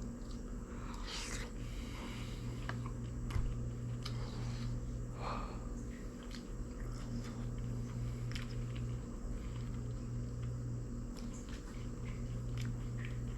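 A person chewing and biting into fried fish with rice, with scattered small clicks of eating and one sharp knock about three seconds in, over a steady low hum.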